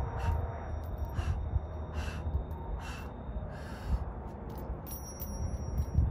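A man breathing hard and rhythmically while doing weighted pull-ups, one forceful breath about every second. Near the end come a few sharp metallic clinks from the chain and weight plates hanging on his dip belt.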